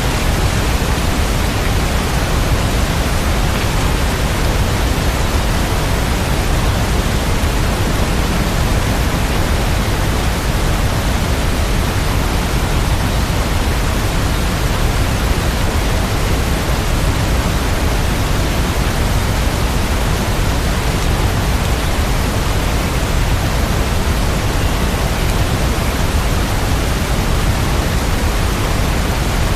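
Steady rain sound: an even, unbroken hiss with no change in level.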